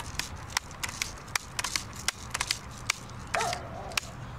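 About a dozen irregular sharp clicks and taps over four seconds, from the Daisy Powerline 880 air rifle being handled close to the phone's microphone.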